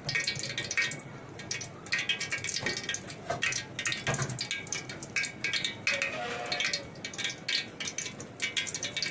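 Hot cooking oil crackling and spitting irregularly in a pan as it heats.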